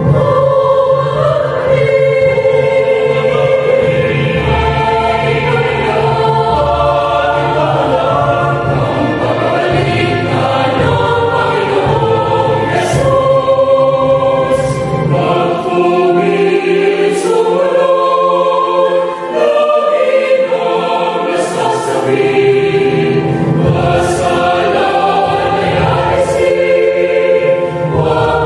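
Mixed choir of women's and men's voices singing a Tagalog hymn in parts. The lowest part drops out for a few seconds in the middle, then returns.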